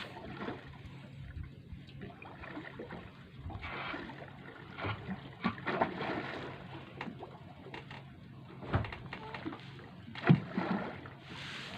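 Water lapping and splashing against a small boat's hull, with irregular knocks on the boat and a steady low hum; the sharpest knock comes about ten seconds in.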